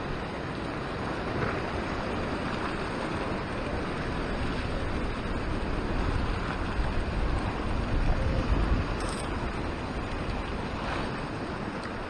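Ocean surf washing against a rock ledge, with wind rumbling on the microphone. The low rumble swells about seven to nine seconds in, as a larger wave comes through.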